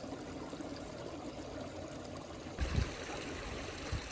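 A small stream trickling and running steadily over its bed. There is a brief low bump on the microphone a little over halfway through.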